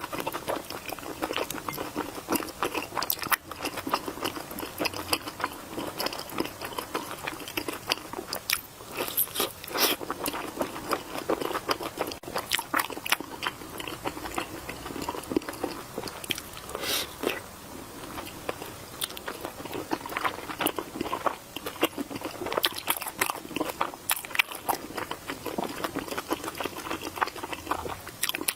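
Close-miked eating: a person biting and chewing food with many crisp crunches.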